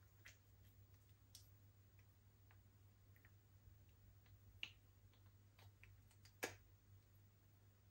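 Faint, scattered sticky clicks and pops of slime being mixed by hand, with two louder pops in the second half.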